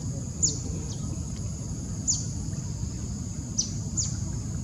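A steady high-pitched insect chorus, broken every second or two by short, sharp falling calls, over a low rumble.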